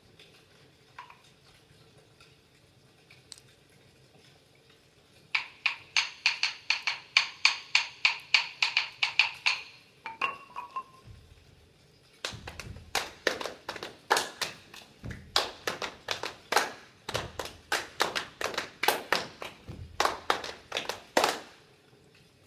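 Hand percussion played live. A quick run of sharp, ringing taps, about four a second, begins about five seconds in and lasts about five seconds. After a short pause comes a longer, uneven run of heavier strikes, about three a second, that stops shortly before the end.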